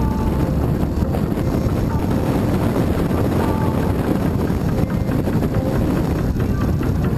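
BMW R 1200 GS LC boxer-twin motorcycle engine running steadily while riding, with heavy wind noise on the onboard microphone.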